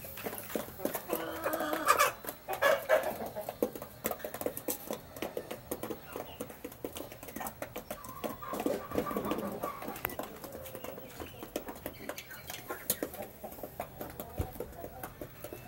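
Half-grown chickens clucking while pecking feed off a concrete floor, with many quick sharp taps of beaks. Louder calls come about two seconds in and again about halfway through.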